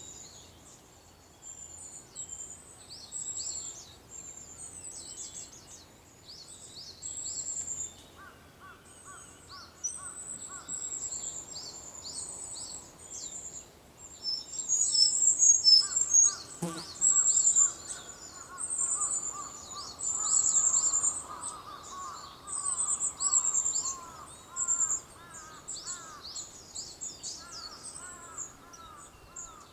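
Several songbirds calling in a dawn chorus: continuous high, thin chirps and trills. About eight seconds in, a lower, fast run of repeated notes joins them and recurs. A single sharp click comes about halfway through.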